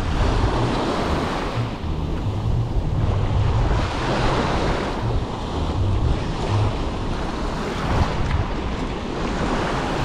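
Small waves washing up on a sandy beach, the surf swelling and ebbing every couple of seconds, with wind buffeting the microphone.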